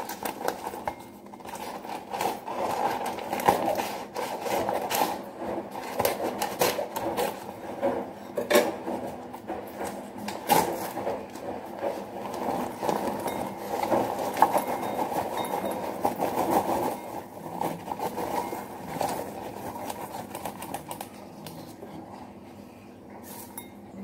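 Popped popcorn poured from a paper microwave-popcorn bag into a bowl: a continuous rustle of popcorn tumbling out, with the paper bag crinkling and many sharp little clicks, thinning out near the end.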